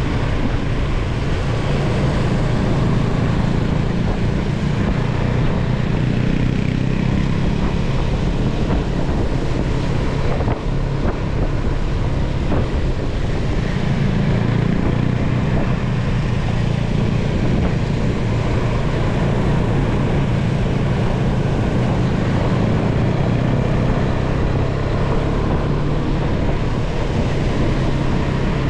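KTM Duke motorcycle engine running steadily at cruising speed, heard from the rider's seat, with heavy wind noise buffeting the microphone.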